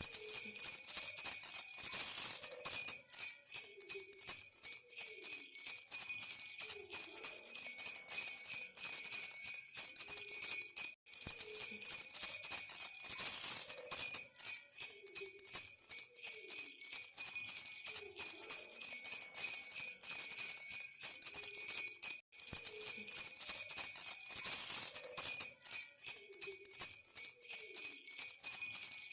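A baby's bell rattle shaken continuously, giving a steady bright jingling. It breaks off for an instant twice as the same stretch of sound repeats.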